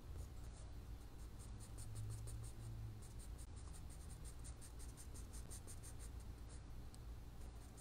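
Charcoal pencil scratching on sketchbook paper in quick, short hatching strokes, several a second, faint and even.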